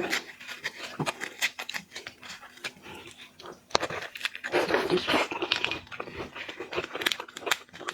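Close-up eating sounds from a shrimp mukbang: many small clicks and crackles of shrimp shell being broken and chewed, with a short voiced, voice-like sound about four and a half seconds in.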